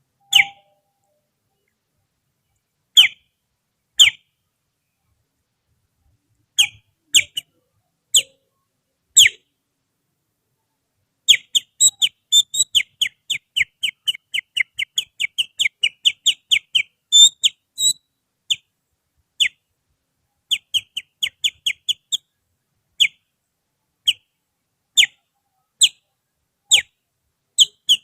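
Finger whistling imitating the song of a kutilang (sooty-headed bulbul): short, sharp whistled chirps. A few spaced notes come first, then a fast run of about four a second in the middle, then spaced single notes again.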